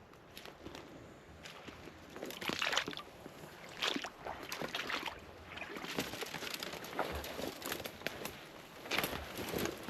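Footsteps sloshing through wet, waterlogged forest ground, in an irregular run of steps about a second apart.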